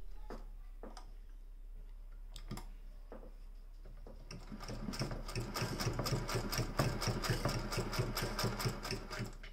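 Vintage Singer 201K hand-crank sewing machine stitching through leather: a few single clicks of the mechanism at first, then from about four seconds in a steady, rapid clatter of stitching that stops just before the end.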